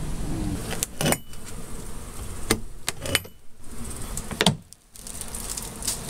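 Handling noise from a phone camera being swung about: rustling and several sharp knocks, with brief dropouts.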